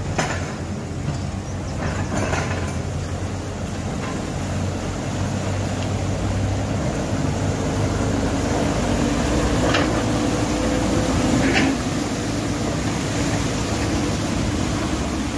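A telehandler's diesel engine running as it drives through a flooded ford towing a trailer, growing louder as it comes close. Water churns and splashes around its wheels, and there are a few brief knocks.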